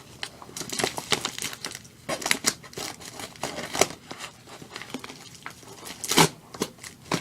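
A mailed package's wrapping being crinkled and torn open by hand, in a run of irregular rustles and rips, with a louder crackle about six seconds in.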